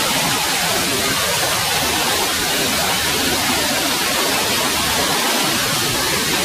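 A rocky mountain stream cascading over boulders: a steady, loud rush of water.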